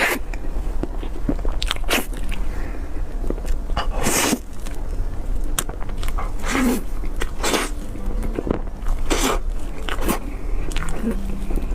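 Close-up eating sounds: a person biting and chewing dessert, with irregular mouth noises and a few louder bites a second or two apart.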